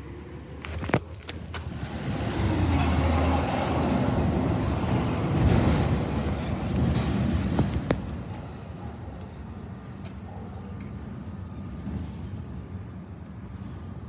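Rear-loader garbage truck's diesel engine running, with a few sharp metallic clanks about a second in. It is loud for several seconds with its engine pitch shifting, then settles to a quieter steady running sound after about eight seconds.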